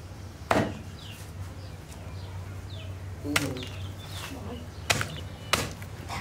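Four sharp chopping strikes of a blade on a hard surface, spaced irregularly: one about half a second in, then three close together in the second half.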